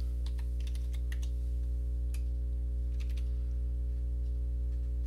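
Scattered light clicks of a computer keyboard and mouse during the first three seconds or so, over a steady low electrical hum from the recording setup.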